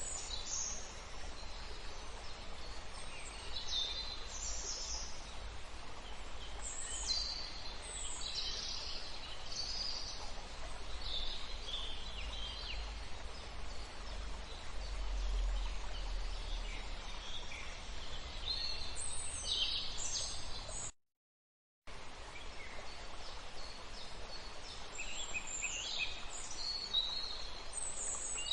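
Outdoor ambience: many short bird chirps over a steady background hiss. The sound drops out to silence for about a second some two-thirds of the way through.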